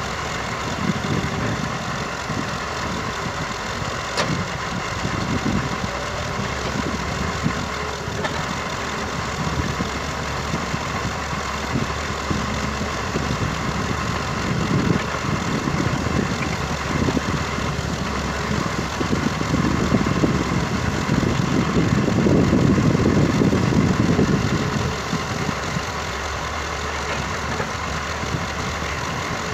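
Diesel engines of a Massey Ferguson 385 tractor idling and a Doosan excavator working as it loads soil into the tractor's trolley. The engine noise is steady, swelling louder for several seconds about two-thirds of the way through.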